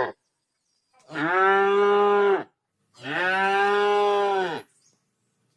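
A cow mooing twice: two separate calls of about a second and a half each, each holding a steady pitch and dropping off at the end.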